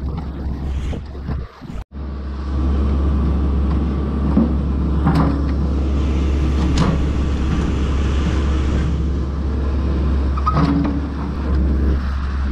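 A backhoe's diesel engine running steadily, with a few sharp knocks as it works at the old rails.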